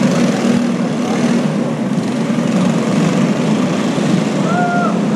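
Clone (Honda GX200-copy) single-cylinder four-stroke kart engines running in a race, a loud, steady engine drone. A brief pitched sound rises and falls near the end.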